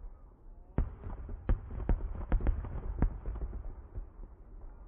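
Fireworks display: an irregular run of sharp bangs and pops from aerial shells bursting, several a second, starting a little under a second in, with a low rumble between them.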